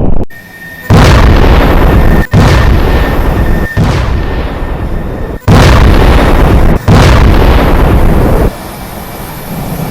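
A run of loud explosion sound effects: five sudden blasts, each fading into a deep rumble, one about every second and a half, dying down near the end and then cutting off.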